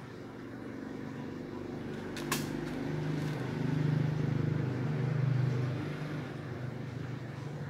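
LG 7 kg top-load washing machine, fitted with a Samsung tub, spinning up empty on its spin cycle with no water in it. A low motor hum builds over the first few seconds, peaks about four to five seconds in, then eases a little, with a single sharp click about two seconds in. The machine is running smoothly.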